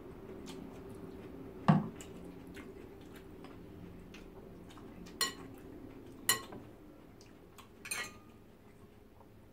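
Metal spoons and a fork clinking and scraping against glass serving dishes: four sharp clinks, the loudest about two seconds in and the last one a short scrape near the end, over a low steady hum.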